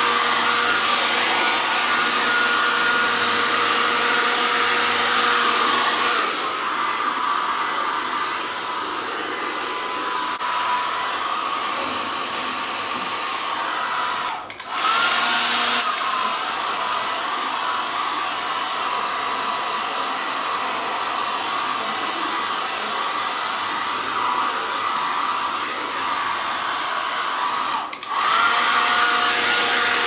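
Handheld hair dryer blowing steadily, drying a wet cat's fur. The hair dryer gets somewhat quieter about six seconds in. It cuts out for a moment twice, once near the middle and once near the end, and each time comes back with a short rising whine as the motor spins up.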